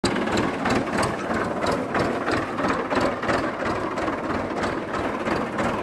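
Mahindra 575 DI tractor's four-cylinder diesel engine running, with a steady rhythmic clatter.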